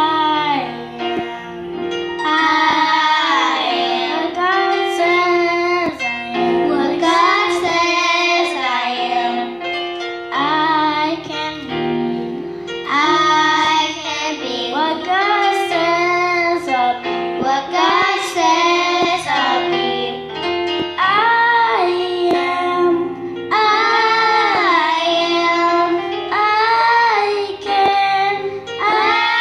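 Young girls singing a song together into handheld microphones over instrumental accompaniment, their voices amplified in a church sanctuary.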